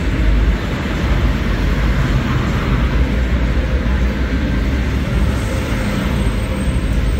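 Steady rumbling noise of a vehicle on the move, even in level throughout.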